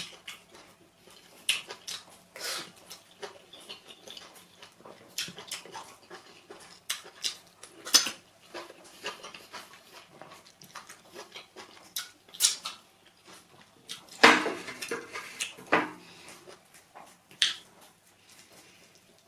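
Mukbang eating sounds: wet chewing and mouth smacks from eating pounded yam with efo riro vegetable soup, coming at irregular intervals, with a louder run of smacks about fourteen to sixteen seconds in.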